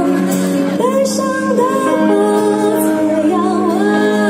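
Live band music through a concert PA: a woman singing long held notes over acoustic and electric guitar.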